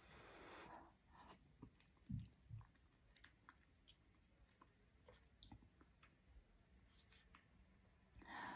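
Faint eating sounds: a breath blown over a spoonful of hot chili, then quiet chewing and small clicks of a plastic spoon in a paper cup, with two soft low thumps about two seconds in and another breath of blowing near the end.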